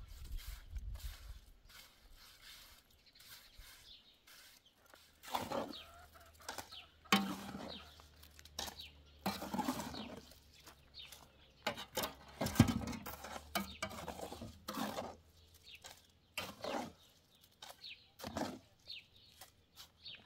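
Intermittent short animal calls, fowl-like clucks, among scattered knocks and handling noises.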